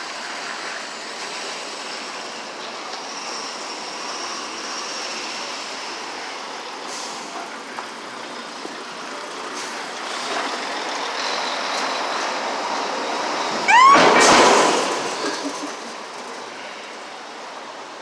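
Steady city street traffic that slowly builds. About fourteen seconds in, a heavy vehicle gives a short rising squeal and then a loud hiss lasting a second or so.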